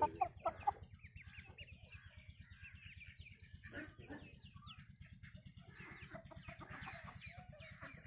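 Domestic chickens clucking, with a few loud calls in the first second, while small birds chirp in the background. A steady low mechanical hum runs underneath.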